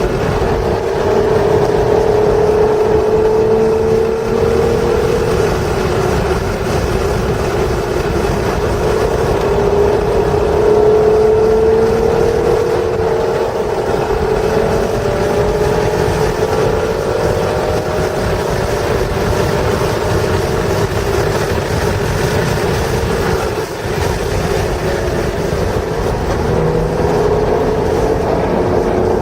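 1996 Acura NSX's 3.0-litre V6 engine under track driving, its note rising in pitch several times as the car accelerates, with breaks between pulls, over heavy steady wind and road noise.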